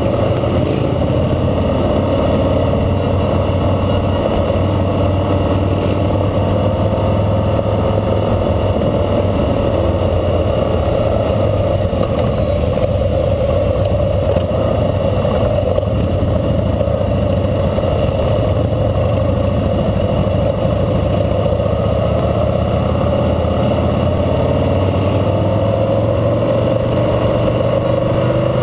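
2012 Harley-Davidson Fat Boy Lo's V-twin engine running steadily under way at road speed, recorded from a camera on the bike. The engine note rises and falls slightly a couple of times.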